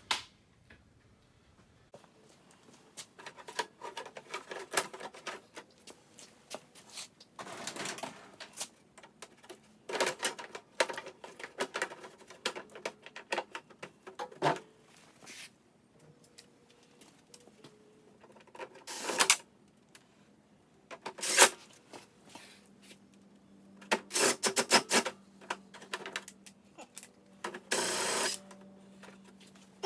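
Intermittent clicking and clattering of hand tools and small parts being handled while working on a small engine, in irregular bursts with short gaps between.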